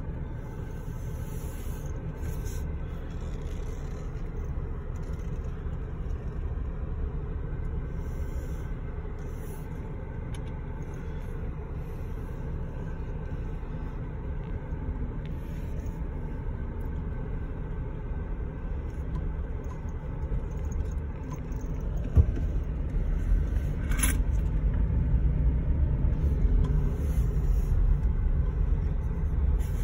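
Car running, heard from inside the cabin as a steady low rumble that grows louder about two-thirds of the way through as the car gets moving, with a single sharp knock about three-quarters in.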